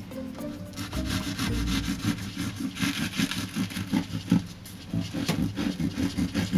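Bread knife sawing through a loaf of homemade sandwich bread, cutting through the crust and crumb in repeated back-and-forth strokes that begin about a second in.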